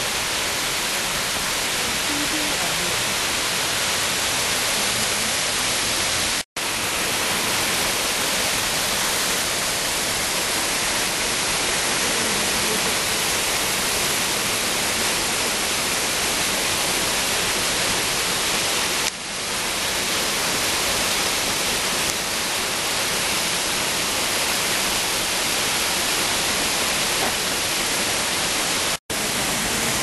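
Waterfall's steady rushing hiss, brightest in the high range. The sound cuts out for an instant about six seconds in and again near the end.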